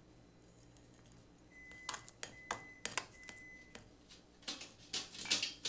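Chopsticks picking at a steamed swimming crab's shell over a glass bowl: scattered light clicks and taps starting about two seconds in, coming faster near the end.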